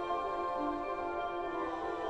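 Slow ambient background music of held, sustained notes, with no beat.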